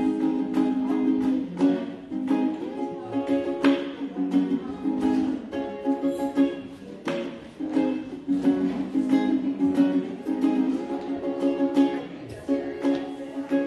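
Solo ukulele strumming chords in a steady rhythm, picked up through a microphone.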